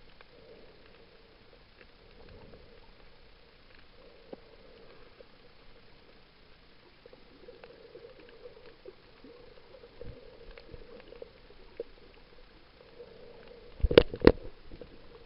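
Underwater sound picked up by a camera in a waterproof housing: a faint murmur with scattered small clicks, then two loud sharp knocks close together near the end.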